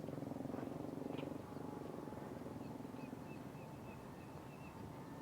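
A small engine runs with a fast, even pulse, fading after about a second and a half. Then comes a series of short, high chirps, about three a second.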